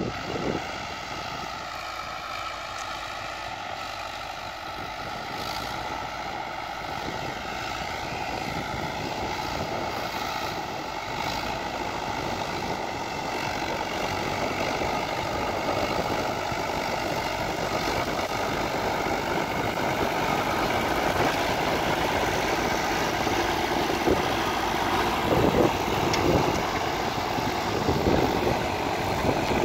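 Fiat tractor diesel engines running under load while pulling disc harrows, the nearer one growing steadily louder as it comes closer. Knocking and clattering from the harrow join in near the end.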